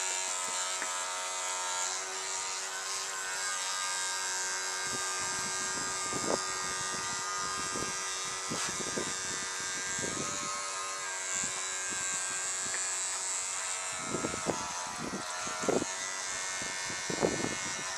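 Battery-powered oscillating electric toothbrush motor buzzing steadily as it drives a toy boat's plastic paddle through the water. From about five seconds in, irregular gusts of wind rumble on the microphone, strongest near the end.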